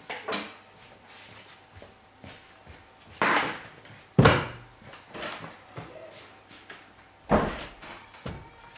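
Knocks and bangs of classroom chairs and a desk: a few small knocks, then three loud bangs about three, four and seven seconds in.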